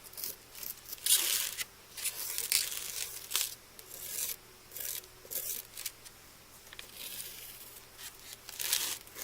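Wooden popsicle stick scraping and spreading a gritty sand-and-glue mixture over a wooden cross, in irregular scratchy strokes.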